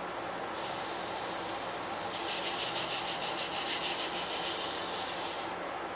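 Cloth rubbing wipe-on polyurethane onto a wet-turned pecan hollow vessel: a steady hiss that grows louder about two seconds in, over a faint steady hum.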